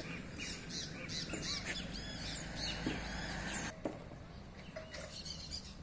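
Small birds chirping in quick, high, repeated calls over a low steady outdoor rumble; the chirping thins out after about four seconds.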